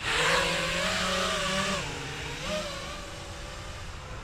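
A 5-inch FPV freestyle quadcopter's motors and Gemfan props whine as it throttles up hard, the pitch wavering, then easing off about two seconds in with a brief rise after. The warbly sound comes from a prop damaged in the crashes.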